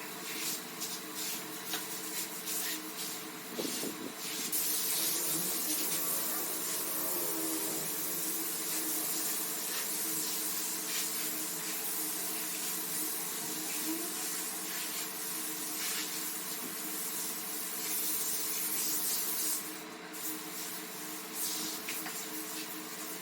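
Wet, foamy carpet being washed: a steady hissing, spray-like scrubbing noise, louder and brighter from about four seconds in until about twenty seconds in, with scattered clicks near the start and end and a faint steady hum underneath.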